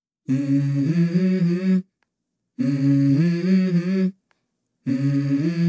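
Wordless hummed vocal phrase sung three times, each about a second and a half long with short gaps between, stepping up in pitch partway through: the intro of a song.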